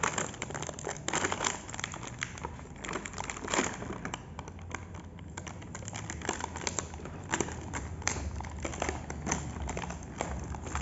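Clear plastic toy packaging crinkling and crackling as it is handled and pulled open, in irregular bursts of sharp crackles.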